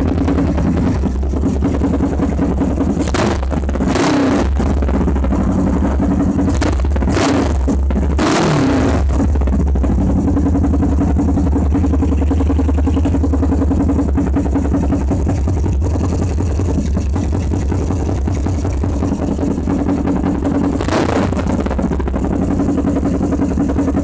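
Suzuki GS500E's air-cooled parallel-twin engine running through a dual exhaust and idling steadily. It gives a few short bursts between about three and nine seconds in, and one more near the end.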